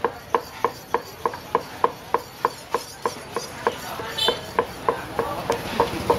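A kitchen knife chopping on a thick round wooden chopping block in a steady rhythm of about three chops a second, each with a brief ringing note.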